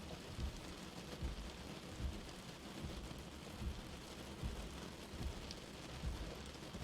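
Light rain falling steadily, with soft low thuds of drops landing at uneven intervals, about one or two a second.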